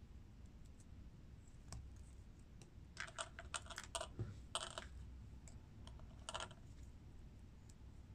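Small plastic building-brick pieces (SY Lego-compatible clone bricks) clicking as they are handled and pressed together: a faint click, then a quick cluster of clicks in the middle and one more a little before the end.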